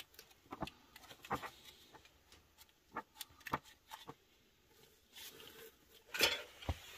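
Faint, scattered light clicks and taps of small items being handled in a box, with a short rustle a little after halfway.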